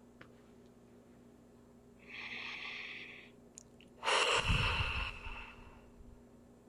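A woman takes a deep breath in, then lets it out in a louder, longer sigh that fades away, the kind of breath that closes a round of EFT tapping.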